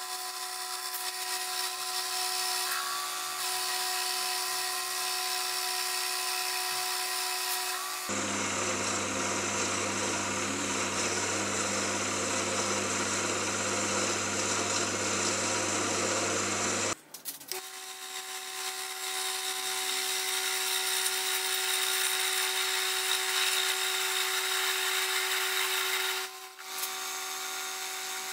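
Mini metal lathe running, turning down an aluminium bar with a cutting tool, a steady mechanical tone over cutting hiss. About a third of the way in the sound switches abruptly to a lower hum with more hiss, and switches back just past halfway.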